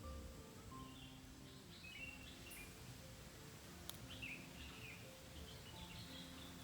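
Small birds chirping and twittering faintly over soft, slow background music made of long held low notes. One sharp click comes about four seconds in.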